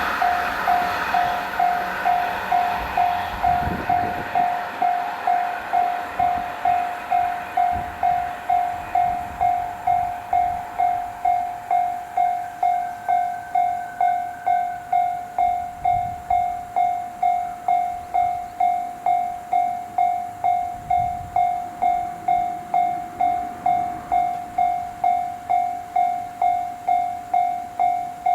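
Electronic level-crossing warning bell ringing steadily, a single clear tone struck about one and a half times a second. The noise of a passing train fades away in the first couple of seconds.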